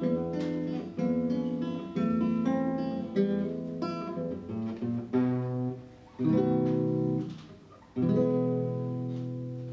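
Solo classical guitar, fingerpicked: a run of strongly struck chords and plucked notes, roughly one chord a second with short pauses, ending on a final chord about eight seconds in that is left ringing and slowly fades.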